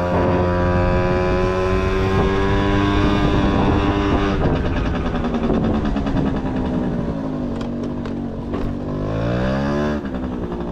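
Honda Topic moped's small engine running under way: the engine note holds steady, sags for a few seconds, then climbs quickly and drops suddenly as the throttle is let off, about ten seconds in.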